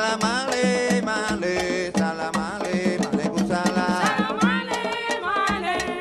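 Live Afro-Cuban music: voices singing over a driving rhythm of conga drums and other hand percussion.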